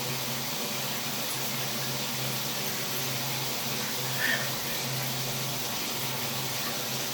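Shower water running, a steady even spray. One brief faint sound about four seconds in.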